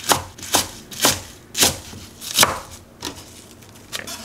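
Kitchen knife chopping garlic chives on a wooden cutting board: about five sharp chops roughly half a second apart, then a few lighter ones near the end.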